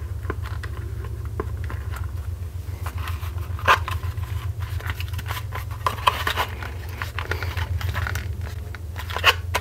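Plastic spring clamps being fitted and squeezed onto a freshly heat-folded kydex holster, giving scattered clicks and knocks, loudest about a third of the way in, around two-thirds of the way and near the end, over a steady low hum.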